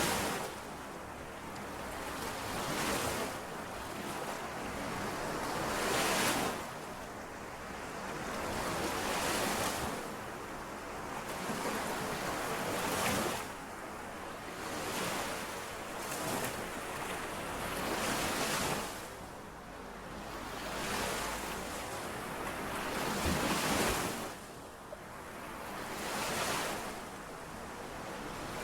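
Small lake waves washing in and out, each one swelling and ebbing about every three seconds.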